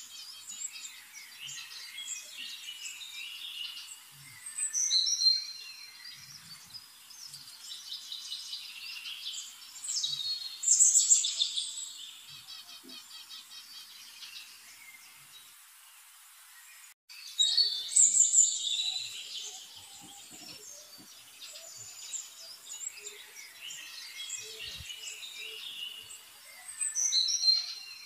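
Birds chirping and singing, many overlapping high calls, with louder bursts of song every several seconds.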